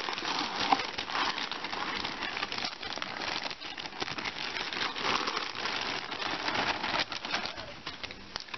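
Clear plastic packaging crinkling and rustling as hands handle and unwrap it, a steady run of small crackles.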